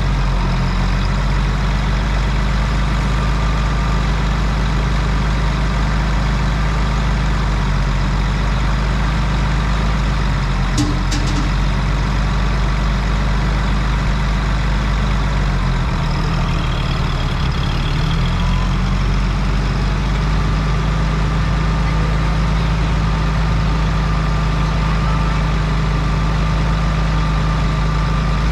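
Oliver 1550 tractor's engine idling steadily. A little past halfway its speed dips briefly, then picks back up.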